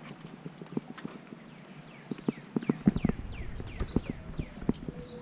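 A cast net holding a freshly caught fish being handled on stone pavers: irregular light knocks and clacks, coming thickest about three seconds in.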